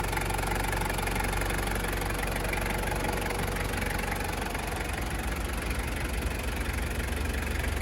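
Toyota HiLux Surf's 3-litre turbo diesel engine idling steadily.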